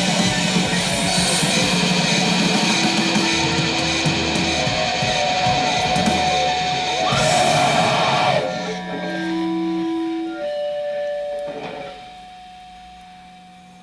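Loud rock music with guitar and drums; about eight seconds in the full band stops and a few held notes ring on, then fade away.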